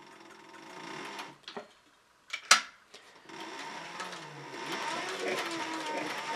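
Heavy-duty leather sewing machine stitching through a thick, layered leather sheath. It stops about a second in, a single sharp click sounds in the pause, and then the machine starts stitching again and runs on, getting louder.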